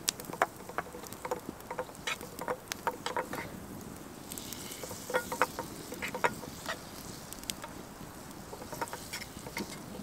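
Wood campfire crackling, with irregular sharp pops and snaps throughout and a soft hiss for a couple of seconds in the middle.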